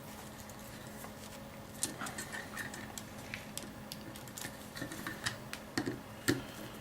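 Small irregular clicks and creaks of a screw being turned by hand into a small wooden block. It is going in stiffly and is hard to drive. The clicks grow denser about two seconds in, with a couple of sharper ones near the end.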